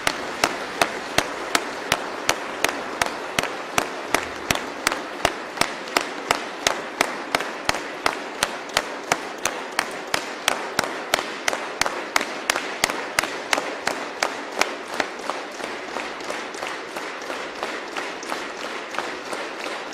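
A large audience giving a standing ovation, clapping in unison at a steady beat of about three claps a second. The rhythm holds throughout and grows slightly softer toward the end.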